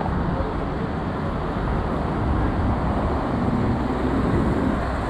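Steady road traffic noise, cars passing on a city street.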